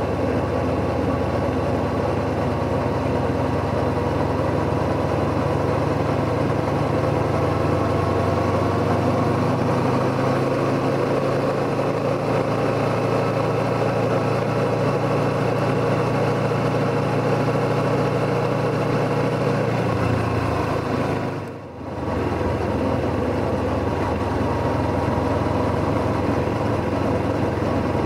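Kawasaki Z motorcycle engine running steadily as the bike is ridden, with its note climbing slowly, over a steady rush of wind and road noise. About twenty seconds in the engine note drops, followed by a brief dip in the sound.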